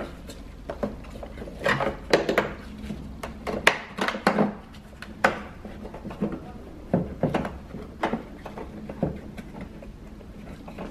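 Hard plastic clicking and scraping as bulb sockets are twisted out of the back of a Mitsubishi Mirage tail light housing and its wiring connectors are unplugged, in an irregular series of short clicks.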